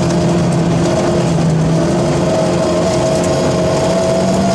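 Rally car engine heard from inside the cabin, running under load at fairly steady revs along the stage, over a steady rush of road noise.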